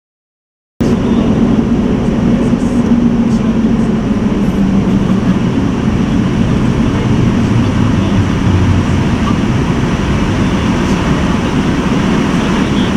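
Steady vehicle running noise, a low hum under a broad hiss, that cuts in abruptly about a second in.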